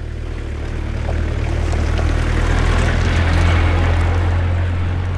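A motorhome driving by: a steady low engine hum with road noise that grows louder to a peak about three or four seconds in, then eases off a little.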